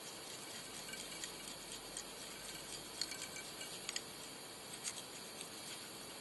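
Faint, irregular small ticks and clicks from fingers and tying thread being worked on a fly-tying vise while the thread is wrapped over the tag material, over a steady low hiss.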